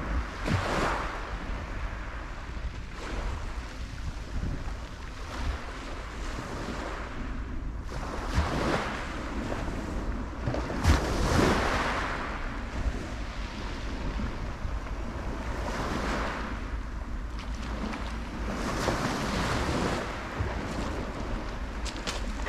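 Small waves breaking and washing up a shingle beach, swelling every few seconds, with wind rumbling on the microphone.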